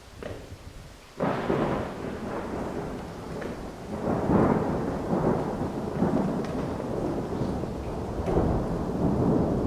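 A deep rolling rumble that starts suddenly about a second in and goes on, swelling and fading several times. It is heard during a cold rain, and the uploader takes it for welded railroad rails contracting as they cool after a hot day; it also fits thunder.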